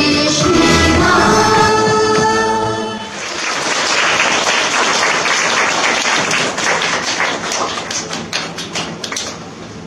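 A woman singing into a microphone over backing music for the first three seconds, then a dense patter of hand claps like applause that fades out near the end.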